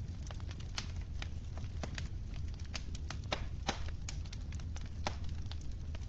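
Wood fire crackling in a fireplace: irregular sharp pops and snaps, several a second, over a steady low rumble of the burning fire.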